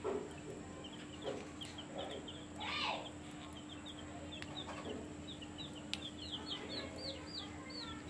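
Faint, high-pitched chirping of small birds: short peeps a few a second, getting denser in the second half, with one brief louder call about three seconds in. A steady low hum runs underneath.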